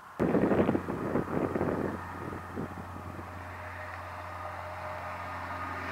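Thunder from a nearby lightning strike: a sudden loud clap, then rolling rumbles that die down over about two seconds into a low, steady rumble.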